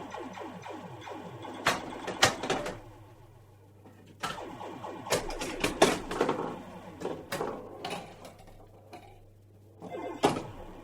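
Pinball machine flippers clacking in sharp strokes, some in quick pairs, with clusters separated by pauses and a rattling texture between strokes over a low steady hum.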